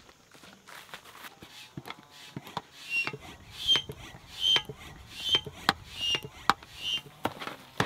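Manual floor-style hand pump inflating an air-beam tent: a stroke with a short squeak about every 0.8 s, starting about three seconds in, after a few lighter knocks.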